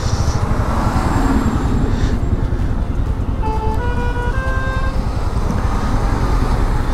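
Steady low rumble of wind and engine while riding a motorcycle. About three and a half seconds in, a vehicle horn sounds a short run of stepped tones rising in pitch.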